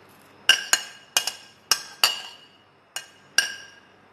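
A steel spoon clinking against a glass bowl about seven times, irregularly, as chopped raw mango is pushed out of it into a steel pan. Each clink rings briefly.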